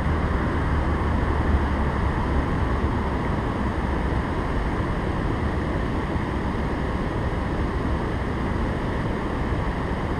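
Steady rush of water pouring over a river dam: a constant noise with a low rumble, slightly stronger in the first couple of seconds.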